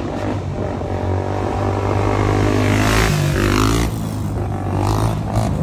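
Road vehicle engine running close by, with a steady low hum; its pitch climbs and it is loudest about three seconds in, then eases off.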